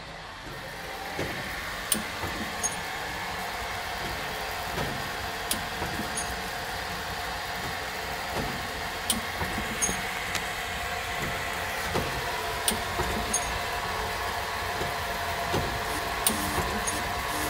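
An APT depositor running: a steady mechanical whirr from its electric motor and belt drive, with sharp clicks in groups of three about every three and a half seconds as the mechanism cycles.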